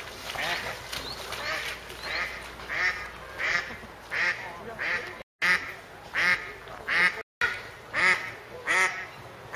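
Ducks quacking in a steady run of loud, nasal quacks, a little under two a second.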